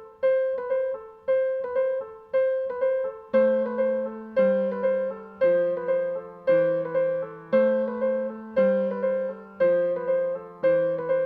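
Piano music: a short repeating figure of struck notes, about one group a second, with lower bass notes joining a little over three seconds in.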